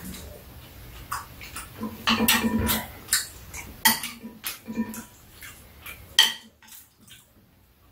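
Metal spoons and chopsticks clinking and scraping against ceramic bowls during a meal, in irregular short clicks and knocks that thin out near the end.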